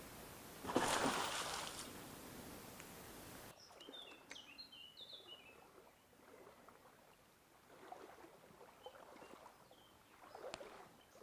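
A spooked Eurasian beaver makes a loud dive, a single sudden splash of water about a second in. Afterwards a bird chirps several times over faint stream water.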